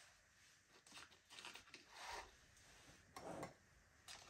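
Faint scattered rustling and clicking as whole nutmegs are picked through in a plastic tub, with a small metal grater handled alongside.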